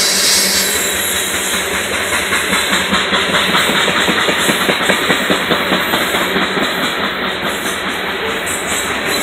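Coal train hopper cars rolling past at close range: a steady hiss and rumble of steel wheels on rail, with a dense rattle of rapid clicks.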